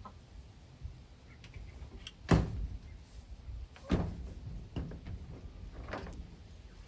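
A few knocks and thumps from handling and mounting a light fixture: the loudest about two seconds in, then two smaller ones about a second and a half apart.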